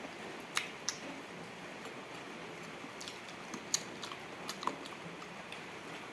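A person eating close to the microphone: chewing, with several sharp wet clicks and smacks from the mouth, the loudest a little past the middle.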